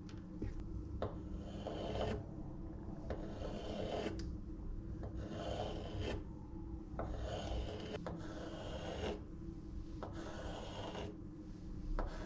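Kitchen knife cutting through avocado and scraping on a wooden cutting board, in a series of scraping strokes about a second apart, several starting with a sharp click.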